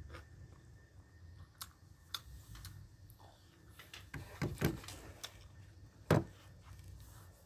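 Mealtime handling sounds: scattered small clicks and light knocks, with a few louder low thumps about four and a half and six seconds in.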